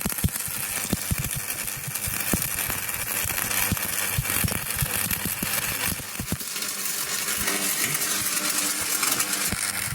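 Stick welding arc crackling: a dense, irregular crackle of sharp pops over a steady hiss, as the electrode burns on a root weld.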